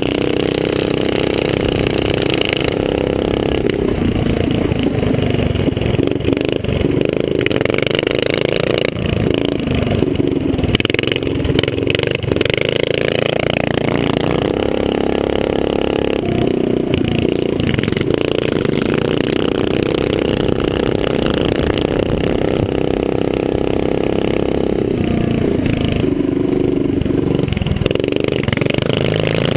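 Small mini-bike engine racing close up from the rider's helmet, its pitch climbing and dropping again and again as the throttle is opened and closed through the track's straights and turns.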